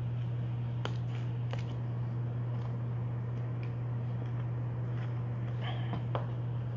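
A steady low hum with a few faint clicks and a brief rustle: a trading card being handled and slipped into a clear plastic card holder.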